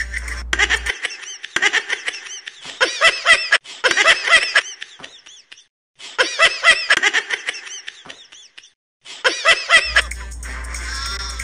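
A person laughing in long runs of rapid pulses, breaking off twice briefly. A music track plays under it at the start and comes back near the end.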